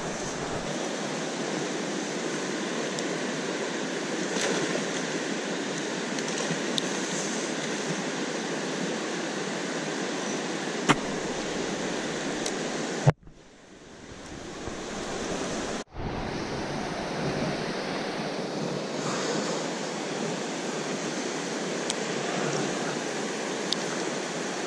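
Steady rushing of river water running over a rocky riffle. About thirteen seconds in there is a sharp click and the sound suddenly drops out, building back up over a few seconds, with another brief cutout after that.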